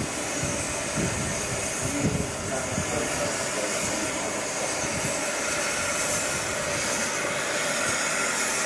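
LMS Class 3F 'Jinty' 0-6-0 tank locomotive moving slowly past under steam, with a steady hiss of steam and a few low thuds in the first three seconds.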